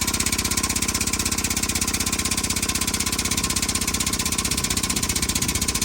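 Air-powered 6-ton jack's pump chattering in rapid, even pulses as it lifts the truck.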